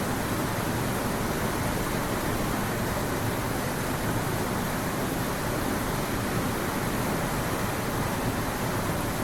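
Steady, even hiss with no other sound.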